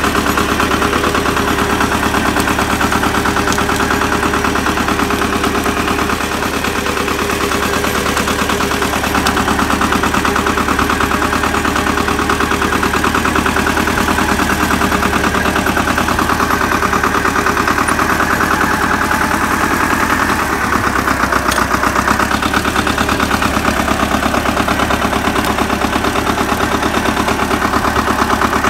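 Pasquali 996E compact tractor's engine running steadily, with a rapid, even pulsing beat. Its note shifts slightly about twenty seconds in.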